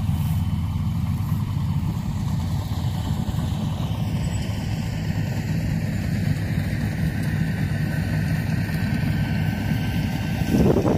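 Yanmar AW82V rice combine harvester's diesel engine running steadily under load while it cuts and threshes rice, with a brief louder surge near the end.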